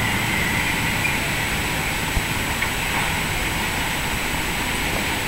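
Steady street traffic noise: a constant low rumble and hiss of cars, with a small knock a little past two seconds in.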